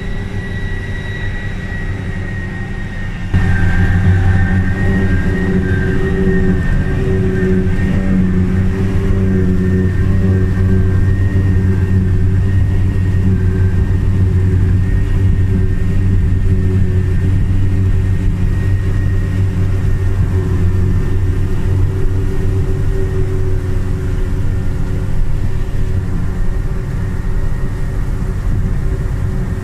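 New Holland FR480 self-propelled forage harvester working under load, picking up and chopping alfalfa: a steady deep engine drone with a high whine from the chopping and blowing gear, with a tractor running alongside. It gets suddenly louder about three seconds in and then holds steady.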